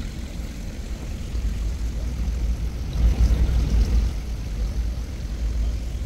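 A low, uneven rumble that swells to its loudest about three seconds in.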